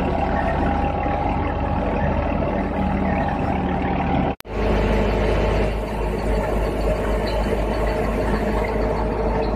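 Tractor-driven wheat thresher running steadily under load as wheat straw is fed into its drum, with the tractor's engine running beneath. The sound cuts out for an instant a little over four seconds in; after that the tractor's low engine hum is stronger.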